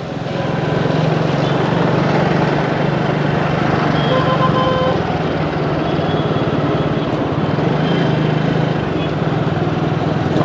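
A vehicle's engine running steadily on the move, with road and wind noise around it; it gets a little louder about a second in.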